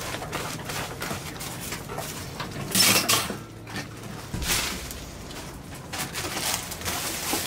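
Thin clear plastic bags crinkling and rustling in short irregular bursts as they are handled and filled by hand, the loudest burst about three seconds in.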